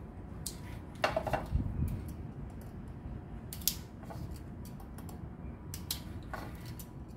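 Hand work on water pipes and fittings: scattered sharp clicks and knocks, with a louder scraping rustle about a second in.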